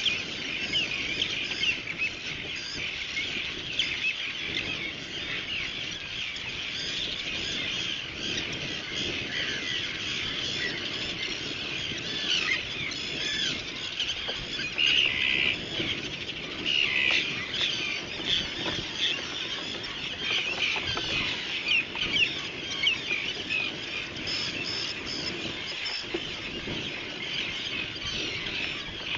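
Seabird colony calling: a constant din of many birds' short cries overlapping, with some louder calls standing out here and there.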